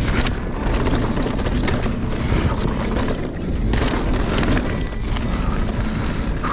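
Mountain bike riding over rocky singletrack: tyres on rock and dirt, with the frame and chain clattering over the bumps and wind buffeting the microphone.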